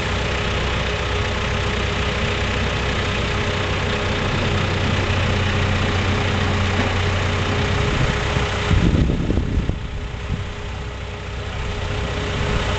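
Telescopic handler's engine idling steadily as it holds a load on its forks. About nine seconds in the sound surges briefly, then drops quieter for a couple of seconds before rising again.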